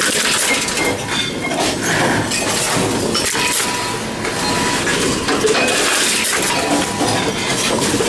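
Envipco reverse vending machines at work: a continuous clatter of clinks and crunches as containers are taken in and crushed.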